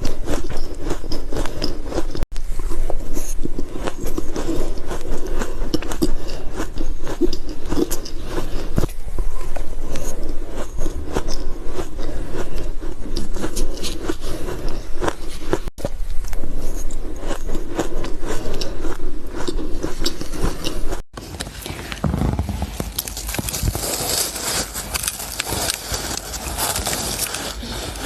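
Ice being bitten and crunched in the mouth: dense, rapid crunching broken by a few abrupt cuts, turning quieter and hissier after the last cut, a few seconds before the end.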